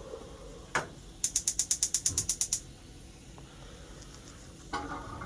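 Gas stove burner igniter clicking rapidly, about a dozen even clicks in under two seconds, as the burner is lit under the rice pot. A short clatter of cookware follows near the end.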